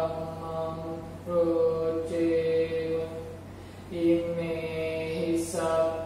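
A man chanting Pali Buddhist verses (paritta) in a slow, level monotone, each syllable held long, with short breaks for breath about a second in and about four seconds in.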